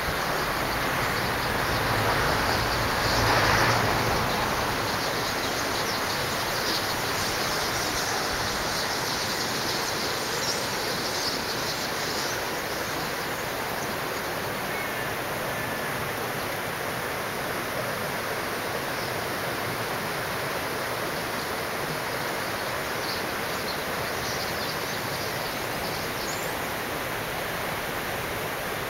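A steady rushing hiss, swelling briefly about three seconds in, with faint high chirps from a murmurating flock of common starlings scattered through it.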